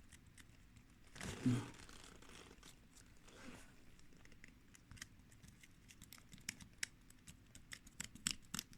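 Soldering iron tip being cleaned in a brass-wire tip cleaner: crinkly scratching and small sharp clicks that come thicker over the last few seconds.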